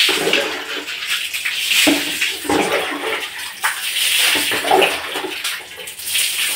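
Tap water running and splashing as hair is rinsed under it to wash out coloured powder.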